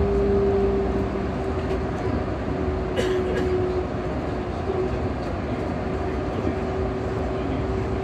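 Running noise inside a Yurikamome rubber-tyred automated guideway train in motion: a steady rumble with a steady hum throughout. A sharp click comes about three seconds in.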